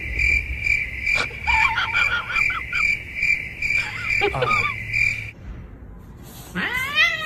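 A high, even chirping at about two pulses a second, with short falling squeaks over it, stops after about five seconds. Near the end a domestic cat starts a long, drawn-out meow that rises and falls in pitch.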